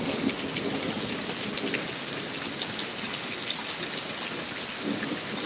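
Steady rain falling, an even hiss with a few sharper ticks of single drops.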